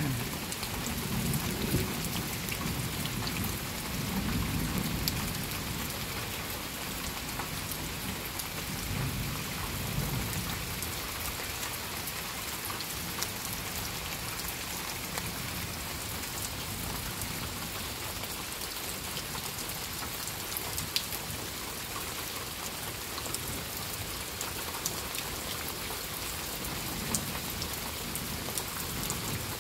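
Steady rain falling on trees and leafy undergrowth, a continuous even hiss. Low rumbles of distant thunder swell under it in roughly the first ten seconds.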